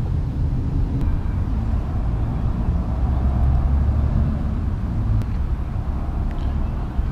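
Steady low rumble of motor vehicle traffic, swelling slightly partway through as a vehicle goes by, with a few faint ticks.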